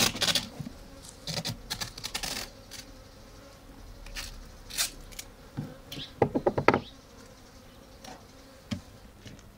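Japanese honeybees buzzing around a wooden hive box, with scattered knocks, taps and scrapes as the box is handled. The loudest run of clicks comes about six seconds in.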